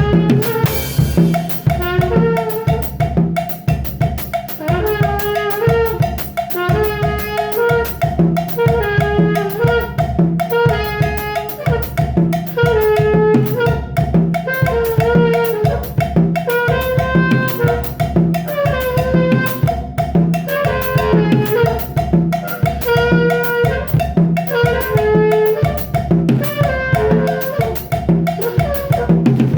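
Music with a drum kit keeping a steady beat under a horn-like melody that repeats in short phrases.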